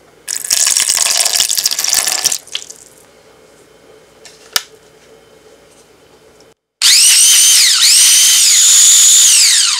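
Water poured into a plastic blender jar for about two seconds. After a pause, the blender's electric motor runs with a high whine, spinning up, dipping once and spinning up again, then winding down near the end as it blends passion fruit pulp with the water.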